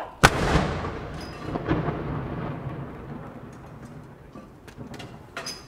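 A ceremonial artillery field gun fires a single blank salute round: one sharp boom about a quarter second in, then a long rumbling echo that fades away over about four seconds.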